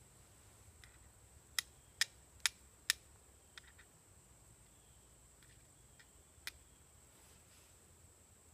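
Homemade steel striker struck against a piece of flint: four sharp clicks about two a second, then a few lighter strikes.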